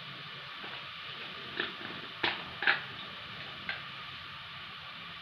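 Sesame oil frying garlic, ginger and curry leaves in a pot: a soft steady sizzle with several sharp pops and crackles between about one and four seconds in.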